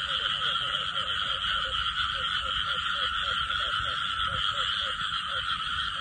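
Frogs calling in a flooded rice paddy: a dense, steady chorus with one short call repeated about three times a second.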